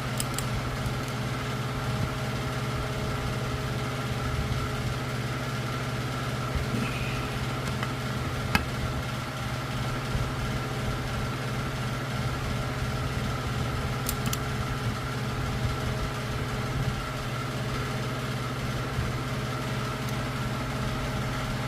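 A steady mechanical hum with a faint higher whine underneath, from a machine running in the background. One sharp click comes about eight and a half seconds in, with a couple of lighter ticks later.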